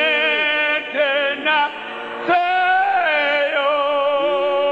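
Several voices singing together in a slow, sustained song. The notes are long-held and carry a clear vibrato.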